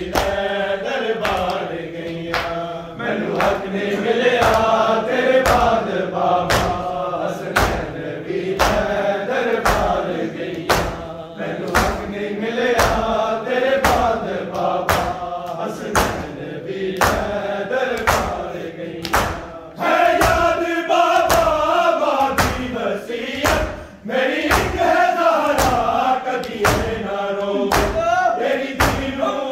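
Men's voices chanting a Punjabi noha (mourning lament) in chorus, over an even beat of bare-handed chest-beating (matam) by the crowd.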